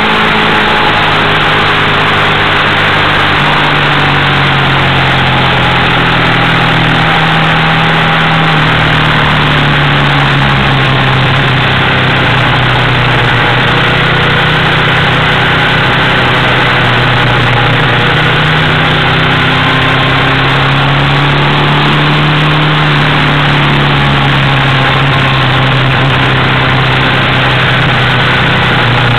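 Triumph Thruxton's air-cooled parallel-twin engine pulling around a racetrack, its note slowly rising and falling with the throttle through the corners, under a steady rush of wind and road noise on the onboard microphone.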